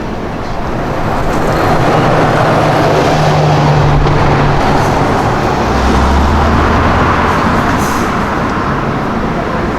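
A car engine running as traffic moves past, with a low steady engine note that holds for a few seconds and then drops to a lower note.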